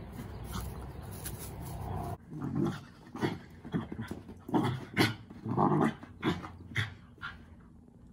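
Dogs play-fighting: after a steady background hiss, a run of play growls and snarls starts about two seconds in, coming in short bursts and loudest in the middle, then dies away near the end.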